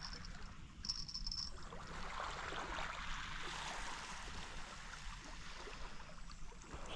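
Small waves washing and trickling over shoreline rocks, swelling and easing, with a brief thin high-pitched tone twice in the first second and a half.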